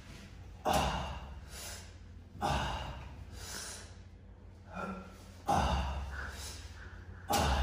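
Four heavy, noisy breaths about two seconds apart, each sudden and fading, in time with pull-up reps on a power tower: exertion breathing.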